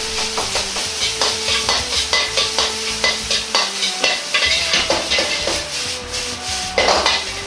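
Metal ladle scraping and clacking against a wok as rice is stir-fried, over a steady sizzle of frying. The clacks come in a quick, uneven run, and a louder rush of sizzle comes near the end.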